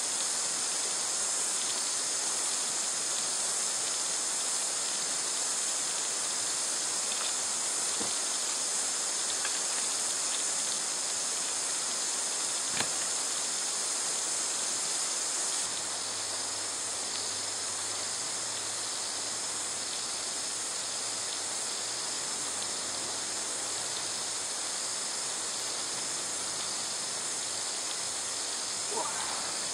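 Steady high-pitched hiss of outdoor bush ambience, with a couple of faint clicks; it drops a little in level about halfway through.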